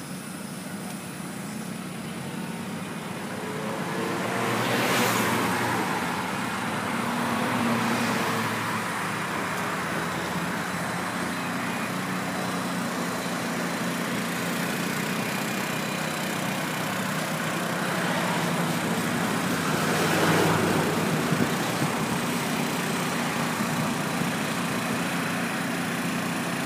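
Road traffic noise: a steady low engine hum under a constant haze, with vehicles swelling past twice, about five and twenty seconds in.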